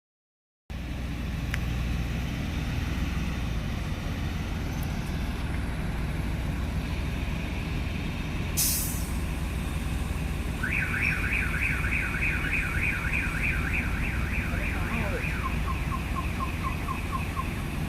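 A heavy lifting machine's engine runs with a steady low rumble, and a short hiss of released air comes about halfway through. Soon after, a rapid warbling warning alarm pulses about four to five times a second for several seconds.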